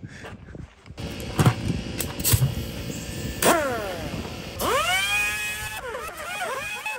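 Compressed-air tool working on a car's bare wheel hub: a hiss of air broken by a few metal clanks, then a whine that rises and holds as the tool spins up to speed, about two-thirds of the way in.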